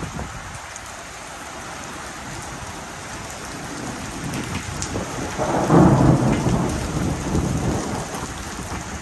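Steady rain falling, with a roll of thunder that builds from about halfway through, is loudest around two-thirds of the way in, and rumbles away toward the end.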